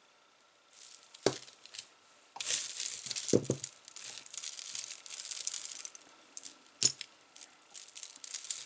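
Costume jewelry being handled: small metal and glass pieces clinking and jingling, with rustling and a few sharper knocks as pieces are set down.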